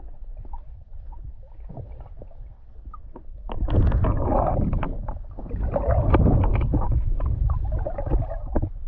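Stream water heard underwater through a GoPro's waterproof housing: a low, muffled rumble with scattered small clicks and ticks. It swells into a louder churning twice, from about three and a half seconds in and again from about five and a half seconds in.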